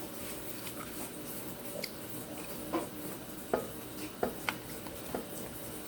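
Scattered soft clicks and taps of a child eating noodles: utensil against the bowl and mouth sounds, a few seconds apart, over a quiet room.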